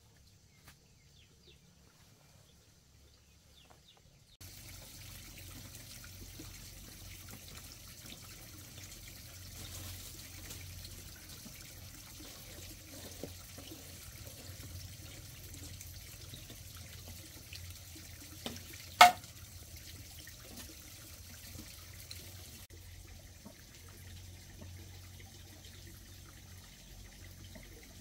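Steady hiss of running, trickling water, starting abruptly a few seconds in. About two-thirds of the way through there is one short, sharp, loud click.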